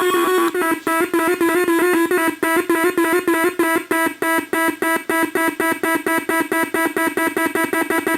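Homemade oscillator drone machine sounding a steady low drone tone under a fast, even stream of pulsed beeps. The beeps step between several higher pitches, as high-frequency oscillators are keyed on and off by low-frequency oscillators.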